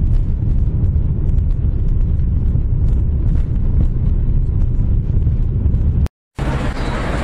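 Jet airliner heard from inside the cabin, a loud, steady low rumble of engines and rolling as it speeds along the runway on its takeoff roll. It cuts off suddenly a little before the end, replaced by outdoor street ambience.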